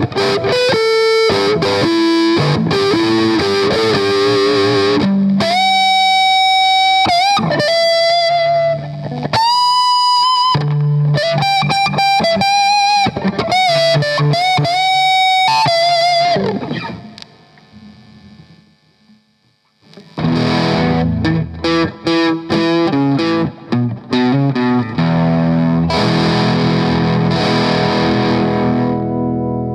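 Electric guitar played through a Boss BD-2 Blues Driver overdrive pedal. It plays single-note lead lines with bent, held notes, fades out a little past halfway, then comes back in with overdriven chord riffing.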